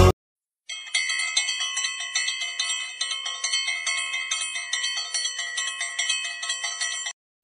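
Bell-like chimes ringing over and over, about two strikes a second, starting just under a second in and stopping shortly before the end.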